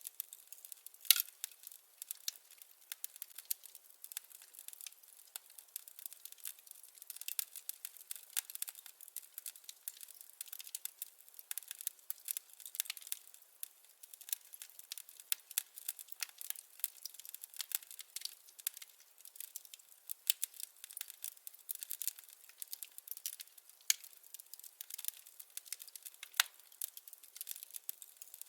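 Wood fire crackling in a fireplace: dense, irregular small pops and snaps, with a few sharper louder pops, about a second in and near the end.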